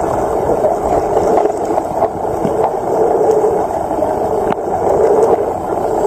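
Muffled rushing and gurgling of water picked up by an underwater camera, steady throughout, with a few faint clicks.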